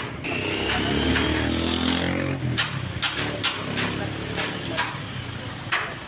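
A motor vehicle's engine passing close by in street traffic, loudest in the first couple of seconds and then fading. After that come sharp knocks at about two a second, as from hammering on the construction site.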